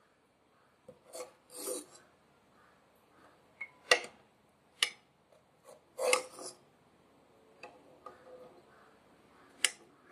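A plastic serving spoon scraping through curry gravy in a nonstick pot and knocking against the pot and plate while egg curry is ladled out: a few sharp clicks scattered through, with a couple of short scrapes.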